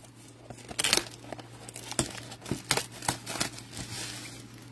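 Cardboard blaster box of Panini Prizm football cards being torn open by hand. It makes a string of short, sharp tearing and crinkling rustles.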